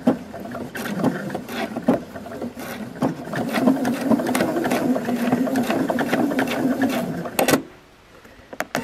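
Pfaff sewing machine stitching, basting quilt pieces together: it runs unevenly at first, then steadily, and stops about seven and a half seconds in, followed by a couple of small clicks.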